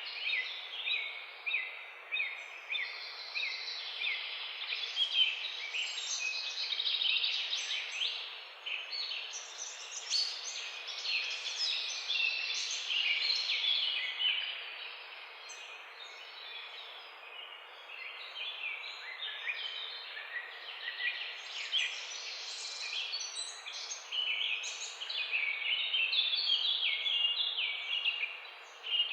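Many small birds chirping at once, a dense chorus of short, overlapping high chirps over a steady background hiss; the chorus thins out for a few seconds midway and picks up again near the end.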